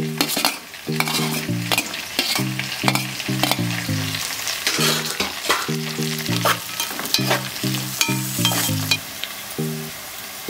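Sliced capsicum, green chillies, cabbage and carrot sizzling in hot oil in an aluminium pot, stirred with a metal spatula that scrapes and clinks against the pot. Under it runs background music with a repeating pattern of short low notes.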